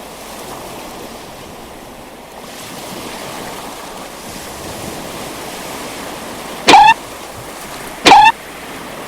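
Steady sound-effect water ambience of gently lapping water. Near the end come two short, loud, high-pitched chirps about a second and a half apart.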